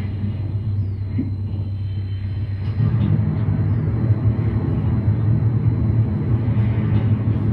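Plumbutter synthesizer playing a low droning tone that steps up louder about three seconds in, with faint thin high tones gliding briefly above it.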